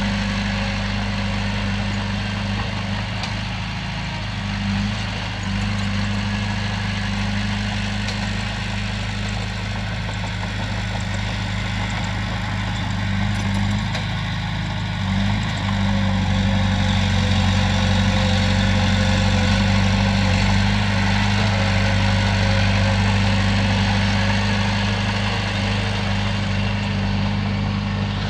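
Komatsu bulldozer's diesel engine running steadily with a low drone, getting louder a little past halfway and easing off slightly near the end.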